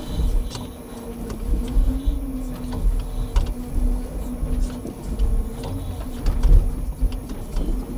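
Timber truck's loader crane working with pulpwood: a steady hydraulic whine that rises slightly in pitch now and then, with scattered knocks and heavy clunks of logs.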